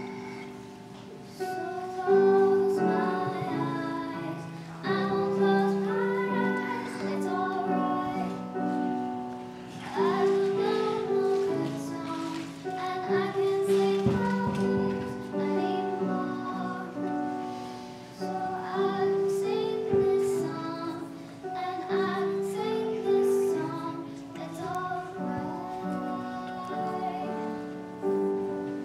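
A girl singing a slow solo song on stage with instrumental accompaniment, long held notes over chords that change every couple of seconds.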